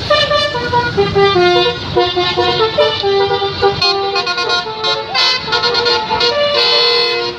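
Tour bus's telolet basuri musical horn playing a quick tune of many short, stepped notes, with a low engine rumble underneath.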